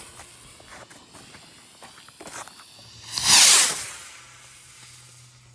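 Bottle rocket going off: a loud hissing whoosh lasting under a second, about three seconds in, after a few faint crackles.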